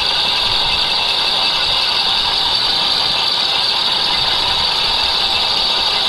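Lathe boring bronze with a high-speed steel tool on a quarter-inch-deep roughing pass: a loud, steady, high-pitched cutting whine from the tool in the bronze, over the lathe's running drive.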